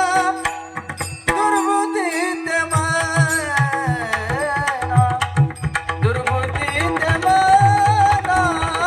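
Marathi devotional singing: an ornamented, wavering vocal line over a steady drone. After about two and a half seconds, deep rhythmic strokes of the mridang (a pakhawaj-type barrel drum) come in.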